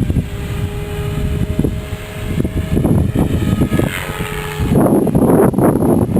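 Electric MSH Protos RC helicopter flying, its motor and rotor giving a thin steady whine that shifts slightly in pitch, under heavy wind buffeting on the microphone that swells in the last second or so.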